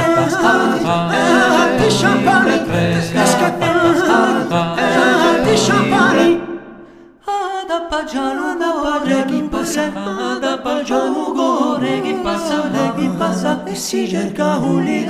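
Music with singing. About six seconds in it fades out, and several unaccompanied voices then sing together in harmony.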